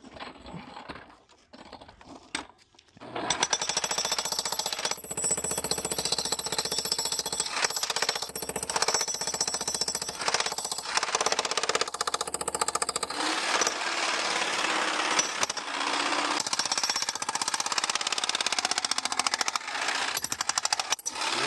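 Jackhammer breaking up a concrete pad, rapid steady hammering that starts about three seconds in and runs on with a few short breaks.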